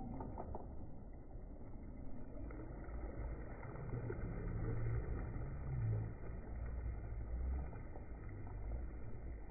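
Low, uneven rumble of wind buffeting the microphone beside choppy lake water, with gusts swelling about four and six seconds in.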